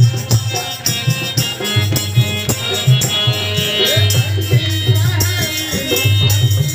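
Devotional folk music: a harmonium plays held chords over a steady drum beat and a rattling hand-percussion rhythm. A man's voice sings into a microphone from about four seconds in.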